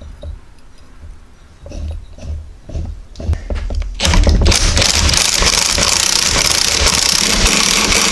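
Light clanks of steel press parts being fitted, then about four seconds in an impact wrench starts hammering steadily, turning a ball joint press screw to drive a new lower ball joint into the control arm.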